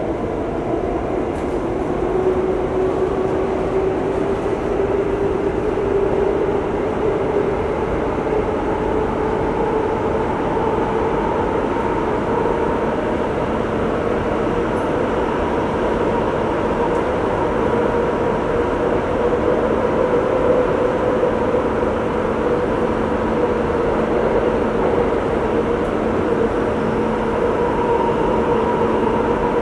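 Subway train running, heard from inside the carriage: a steady rumble with a motor whine that rises slightly in pitch over the first twenty seconds and then holds level.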